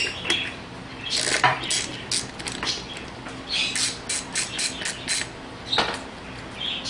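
Socket ratchet clicking in quick irregular bursts as already-loosened 10 mm bolts are spun out of an air suspension pump mount, with metallic clinks of tools.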